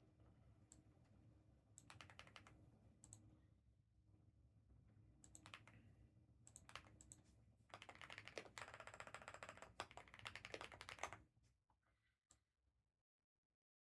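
Faint computer keyboard typing in short runs of quick key clicks, busiest near the end before stopping, over a low hum.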